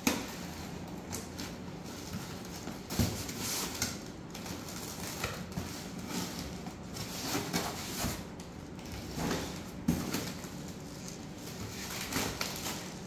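Handling of dense foam packing: a box cutter slitting the tape on a foam block, then the foam layers scraping, rubbing and squeaking as they are pulled apart, with scattered knocks.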